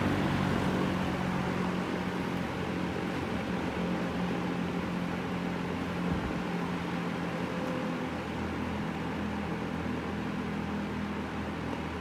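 Vintage Berns Air King box fan running steadily on high, a low motor hum under the rush of air from its blades. It is on its first run after years of sitting unused, dusted out but not oiled.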